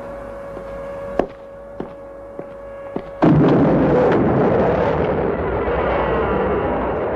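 Soft regular ticks over a steady hum. About three seconds in, a sudden loud rumbling blast cuts in and goes on as a sustained roar with wavering tones through it.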